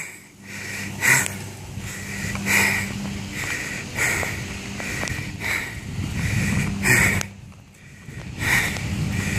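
A person breathing hard close to the microphone: quick, even puffs of breath about every three quarters of a second, over a low rumble, with a short pause near the end.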